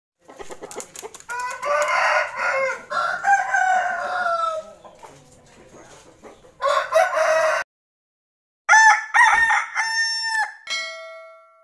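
Bangkok fighting rooster beating its wings in a quick run of claps, then crowing in one long call that falls in pitch, with a second shorter crow a few seconds later. After a short break comes a cleaner crow-like call, then a few ringing tones that fade out.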